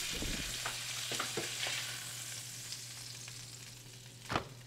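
Fish fillets sizzling as they pan-fry, the sizzle fading through the clip, with scattered light utensil clicks and one sharp knock near the end.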